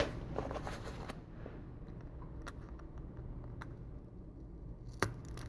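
Faint scattered clicks and scrapes of a thin steel iSesamo pry tool working under a Samsung Galaxy S4's vibration motor, with a sharper click about five seconds in.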